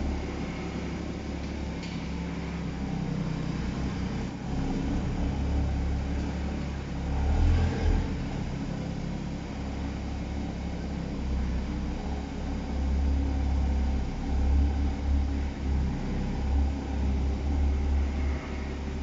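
Porsche Boxster GTS engine idling and running at low revs as the car creeps into a parking space, echoing in an underground car park. The engine swells louder briefly about seven seconds in and rises and falls unevenly later on.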